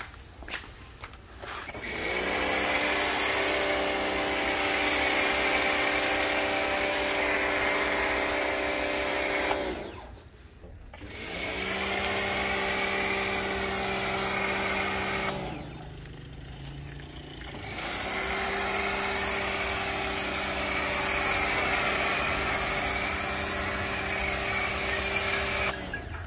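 Pressure washer running a foam cannon, spraying snow-foam soap: a steady pump hum with spray hiss. It comes in three long bursts of about eight, four and eight seconds, stopping in between as the trigger is let go.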